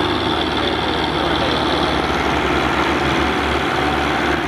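Diesel tractor engine running steadily under heavy load, straining to pull a trolley stuck in sand that does not come free.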